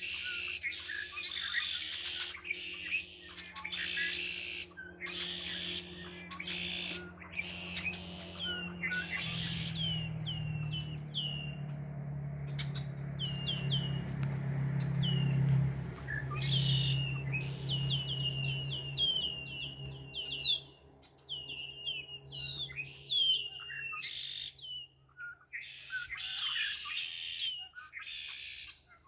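Several songbirds chirping and singing at once, with overlapping trills and runs of quick, repeated down-slurred chirps. A low steady hum runs underneath, swelling in the middle and fading again.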